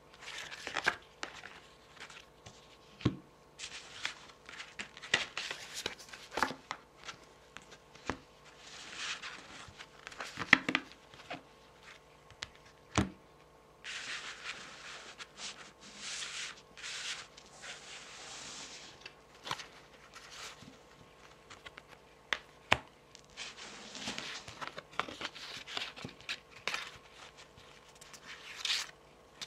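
Long fingernails tapping and scratching on tarot cards, in scattered sharp taps, with stretches of the cards being rubbed and slid across one another in the middle and again near the end.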